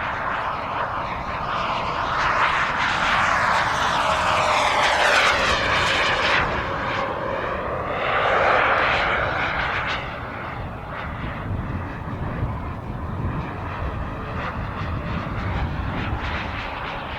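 Small gas-turbine engine of an RC model jet whooshing and whining as the jet flies past, loudest about two to six seconds in and again around eight to nine seconds. It then settles back to a quieter, steady distant drone.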